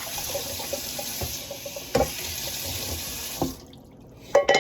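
Kitchen tap running into a sink during hand dishwashing, with a few knocks of dishes. The water is shut off about three and a half seconds in, followed by a quick clatter near the end.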